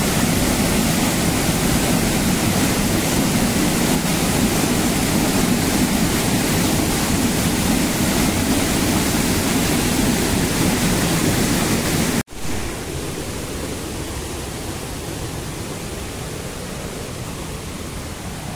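Rushing water of a small waterfall and a rain-swollen river, a loud, steady hiss. About twelve seconds in it drops suddenly to a quieter rush of the stream.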